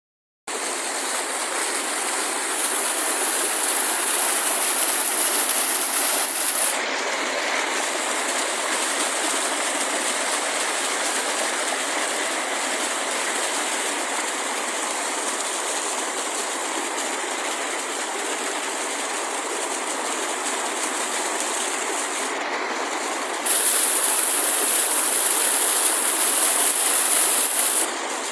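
River water rushing steadily, turning louder and brighter for a few seconds twice: once early on, and again for about four seconds near the end.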